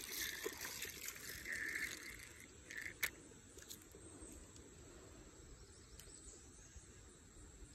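Faint handling noise of a fishing rod and Zebco ZSE20 spincast reel while a hooked bluegill is brought in, soft and uneven in the first two seconds, with one sharp click about three seconds in. A faint steady insect hum runs underneath.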